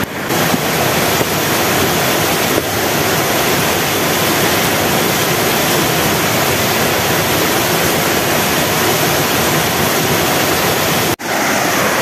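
Steady rushing of a rocky stream and waterfall cascade, an even wash of water noise that drops out for an instant near the end.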